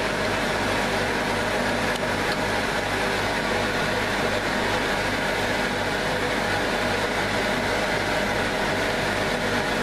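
Steady roar of a gas-and-air forge burner running, an even rushing noise with a low hum that does not change.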